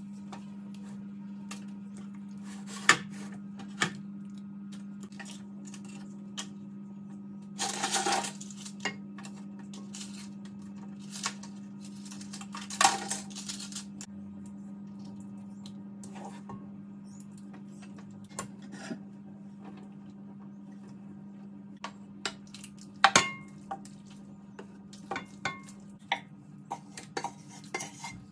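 Cooking clatter: a wooden spoon scraping and knocking in a pot, with pots and a baking dish clinking. The knocks are scattered, with a few longer scrapes, over a steady low hum.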